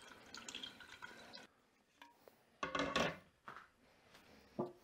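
Mashed watermelon pulp sliding wetly out of a bowl into a metal strainer. After a break, a louder clatter comes about two and a half seconds in as the metal strainer is handled, and a smaller knock follows near the end.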